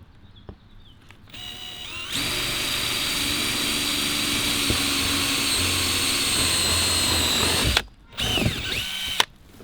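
Power drill boring a marked hole with the drill bit supplied in the hood strut kit: a short spin-up about a second in, then a steady run of nearly six seconds that stops abruptly, and one more brief spin up and down near the end.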